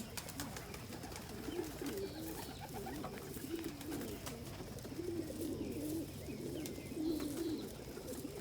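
Domestic pigeons cooing, several birds calling over one another in a steady run of low, wavering coos, with a few faint clicks near the start.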